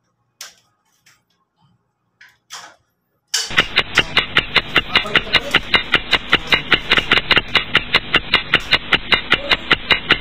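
A few faint clicks, then about three seconds in, music with a fast, steady beat starts abruptly and runs on loudly.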